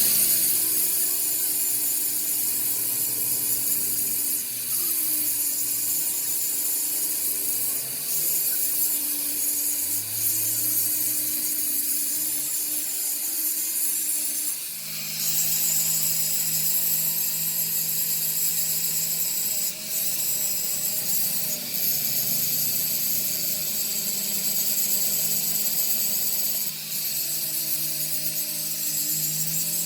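A power tool working metal: a steady high hiss over a low hum whose pitch drifts, with the hum changing about halfway through.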